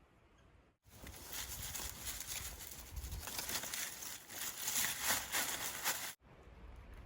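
Dense crackling and rustling of dry plant material, many fine cracks close together. It cuts in sharply about a second in and cuts off sharply about six seconds in.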